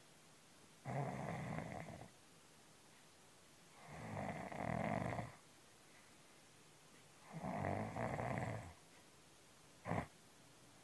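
A cat snoring loudly, three long, drawn-out snores about three seconds apart, like a person snoring. A brief sharp sound comes near the end.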